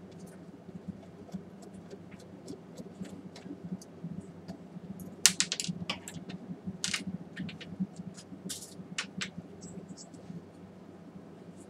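Scattered small clicks, taps and scrapes of hand tools and projector parts being handled, busiest between about five and nine seconds in, over a steady low hum.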